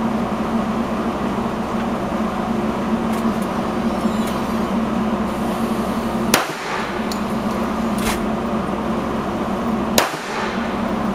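Two single shots from an HK USP .45 pistol, fired slowly about three and a half seconds apart, each a sharp crack, over a steady hum. A fainter crack comes between them.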